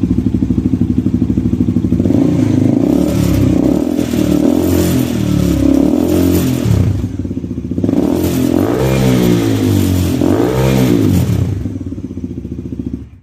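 Bajaj Pulsar NS400Z's single-cylinder engine idling with a steady pulsing beat through its stock exhaust, which has its dB killer removed. It is then revved in a series of blips that rise and fall in pitch, with two longer revs near the end. The sound cuts off suddenly.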